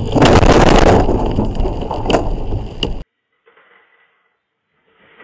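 A sudden loud crash of debris striking a car's windshield, with rattling and two sharp knocks, cutting off abruptly about three seconds in. Then near silence with two faint brief rustles.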